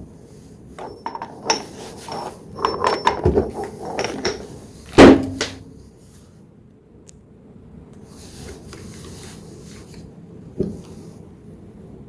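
Handling noise of metal tools: scattered clinks and knocks, with one loud knock about five seconds in, then only faint background noise.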